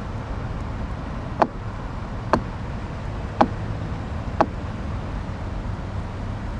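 Steady low rumble of road traffic, with four sharp ticks about a second apart in the middle.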